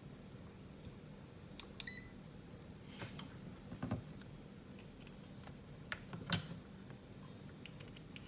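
A digital multimeter gives one short electronic beep about two seconds in as a button is pressed. A few light clicks and knocks of the meter and test leads being handled follow, the loudest a little past six seconds.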